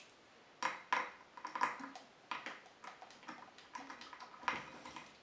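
Irregular small clicks and clinks from hands working parts inside an opened Bang & Olufsen BeoLab 3 loudspeaker. A quick, uneven run of them starts about half a second in, with some sharper knocks among them.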